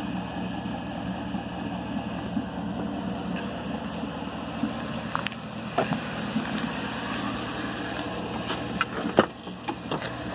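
Chevrolet Silverado V8 idling with a steady low rumble, and a sharp clack about nine seconds in as the driver's door is opened.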